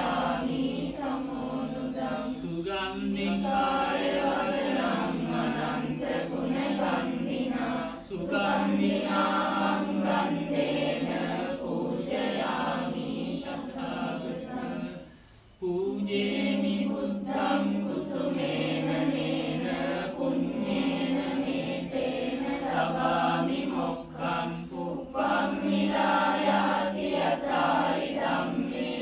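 A group of voices chanting Buddhist devotional verses together in unison, in a steady recitation that breaks off briefly for breath about halfway through.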